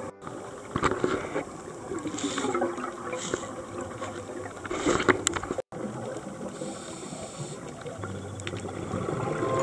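Underwater sound of a scuba diver's regulator: several gurgling bursts of exhaled bubbles over a steady water hiss, cutting out briefly about halfway.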